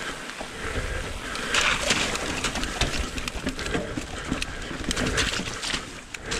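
Mountain bike riding fast down a dirt and root forest trail: tyres rolling over the ground with a steady low rumble, and the bike rattling and knocking over roots and bumps.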